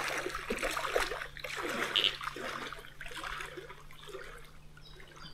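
Water splashing and trickling irregularly, fading over the last seconds.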